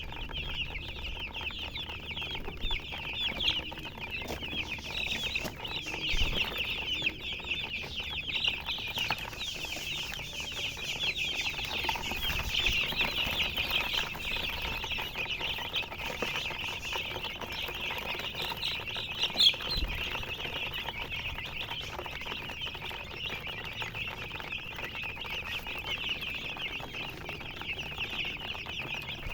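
A flock of baby chicks peeping without pause, a dense chorus of many overlapping short, high chirps. A couple of soft low thumps come through, about six seconds in and again about twenty seconds in.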